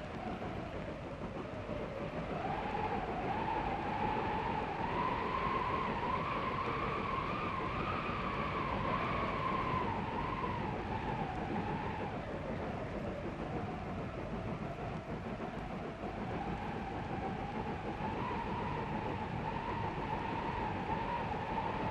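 Train running with wind: a steady rumbling, rushing noise, with a whistling tone over it that slowly wavers up and down in pitch.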